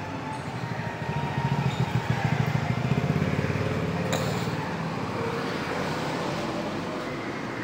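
Small motorcycle riding past close by. Its engine is loudest about two to three seconds in, then fades away.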